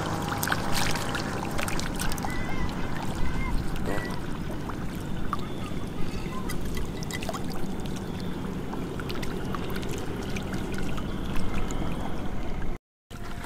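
Catfish thrashing in shallow muddy water: steady splashing and trickling with sharp slaps here and there. The sound cuts out for a moment near the end.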